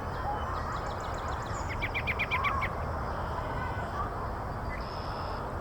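Small songbirds calling over a steady low background hum. Faint quick high twittering is followed by a fast run of about eight short, sharp notes in the middle, and a thin steady whistle comes near the end.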